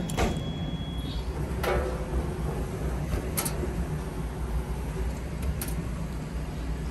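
Steady low rumble of laundromat machines running, with a few sharp clicks.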